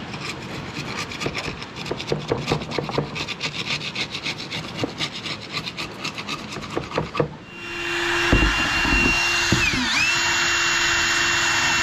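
Rapid, irregular scraping and rubbing on an outboard cylinder head's gasket face as it is cleaned. About seven seconds in, a small rotary tool starts and runs steadily, its pitch dipping briefly as it is pressed onto the surface, then recovering.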